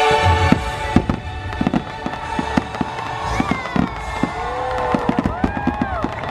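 Fireworks finale: rapid, dense bangs and crackling from firework bursts. The show's choral music ends about a second in. High tones rise and fall a few times in the second half.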